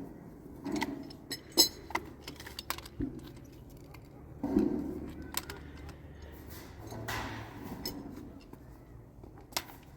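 Scattered light clicks, clinks and knocks of small hard objects being handled, the sharpest about a second and a half in, with two brief rustling swells in between.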